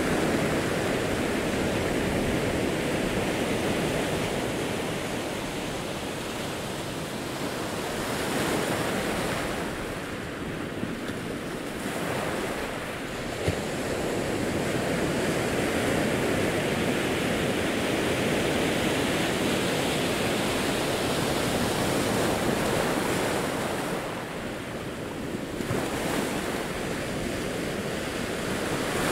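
Ocean waves breaking and washing over a rocky, pebbly shore: a continuous rush of surf that swells and ebbs as each set rolls in. A brief small tick about halfway through.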